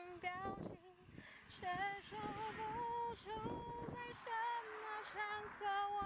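A song with a woman singing a slow melody, holding long notes with a wavering vibrato.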